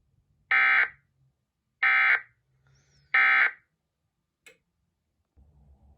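Emergency Alert System end-of-message tones on a NOAA Weather Radio broadcast: three short bursts of digital data tones, evenly spaced about a second apart. They mark the end of the required weekly test message.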